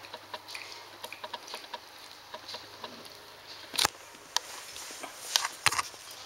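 Standard poodle puppy suckling at its mother's teats: a steady run of many small clicks, with a few louder sharp knocks about four seconds in and near the end.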